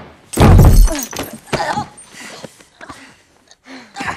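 A loud crash about half a second in, as a body is thrown and comes down hard, with something breaking. It is followed by strained grunts and cries from the fighters and a few smaller knocks.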